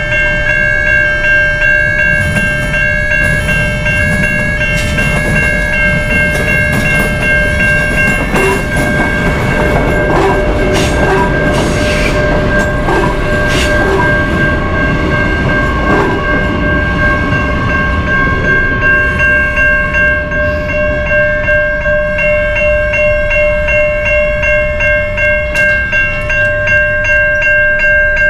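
Freight locomotive's multi-note air horn held in a long, steady chord over the loud rumble of the passing train, with clicks and knocks from the wheels in the middle.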